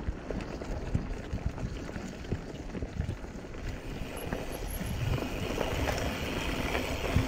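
Mountain bike rolling fast along a dirt singletrack strewn with dry leaves: steady tyre noise over the ground with frequent knocks and rattles from the bike over bumps. The hiss grows louder from about four seconds in.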